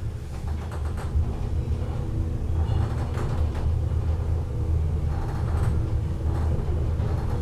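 LUTZ passenger lift car travelling up several decks: a steady low rumble with a few faint knocks and rattles.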